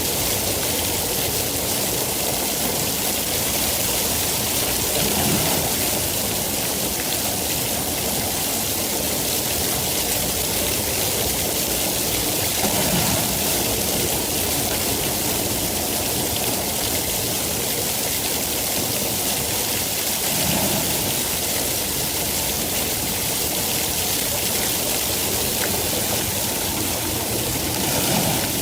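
Steady, heavy rainfall, a dense continuous hiss with a brief swell in the lower part of the sound about every seven or eight seconds.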